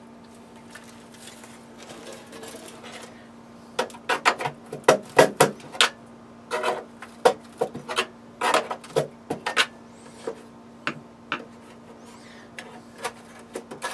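Irregular sharp clicks and clacks of an old router's rusty metal case being pried and slid apart, mostly between about four and twelve seconds in, over a low steady hum.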